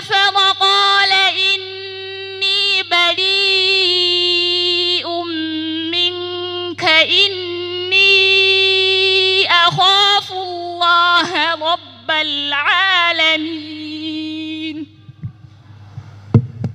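A woman's voice chanting Qur'anic recitation through a microphone and loudspeakers, in long held melodic notes with ornamented turns, stopping about 15 seconds in. A low steady electrical hum runs underneath, and a few knocks come near the end.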